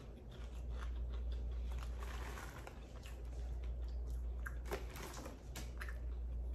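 A person chewing kettle corn: irregular crisp crunches as the popcorn is bitten and chewed, a few of the pieces extra crunchy.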